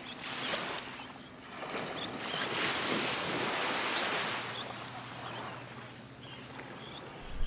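Ocean surf washing in, swelling and easing off, with seagulls calling faintly now and then.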